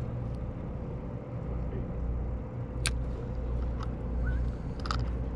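Party boat's engine running with a steady low rumble and a constant hum, with two sharp clicks about three and five seconds in.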